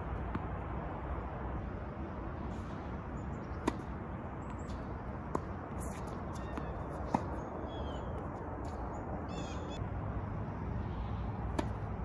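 Tennis ball struck by rackets in a rally: three sharp pops about a second and a half to two seconds apart, then another single hit near the end. Birds chirp briefly in the middle over a steady outdoor background hiss.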